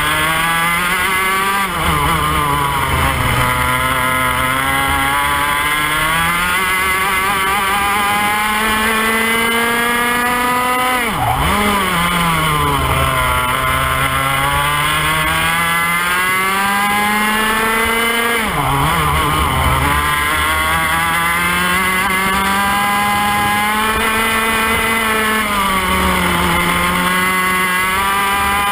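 IAME X30 125cc two-stroke kart engine at racing speed, heard close up from onboard. Its pitch climbs steadily along each straight and falls sharply off the throttle into the corners, several times over.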